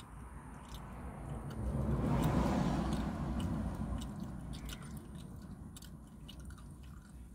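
Low steady rumble of an idling car heard from inside the cabin, with a rush of noise that swells from about a second and a half in and fades by about four seconds. Faint crisp clicks of someone chewing a crunchy fried snack.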